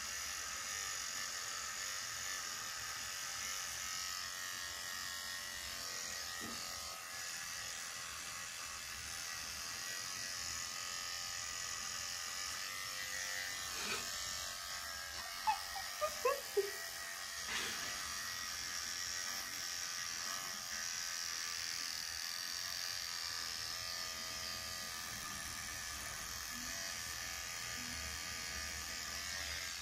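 Cordless electric beard trimmer buzzing steadily as it cuts through a full beard. A little past the middle comes a short cluster of brief, louder sounds that slide down in pitch.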